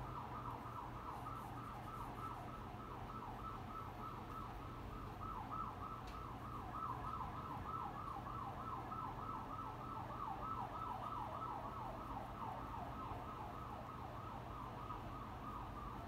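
Emergency vehicle siren in a fast yelp, its pitch sweeping up and down about four times a second without a break, over a steady low hum.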